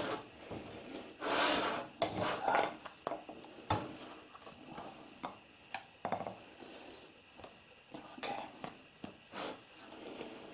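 Spatula scraping and tapping against a fluted ceramic baking dish while smoothing cake batter, in short irregular strokes with a few sharp clicks.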